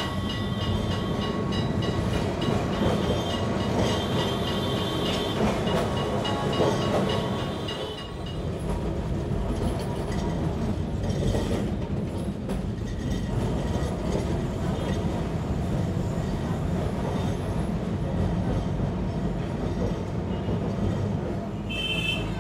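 Kolkata electric tram car running on its rails, a steady rumble and rattle of the wheels and car body. A thin high whine rides over it for the first eight seconds or so, then stops; a brief high-pitched sound comes near the end.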